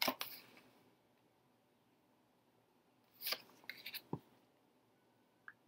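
Tarot cards sliding against each other as one is drawn off the deck, a short papery rustle at the start; about three seconds in, a second cluster of quick slides and taps ends in a soft tap as the card is laid on the table.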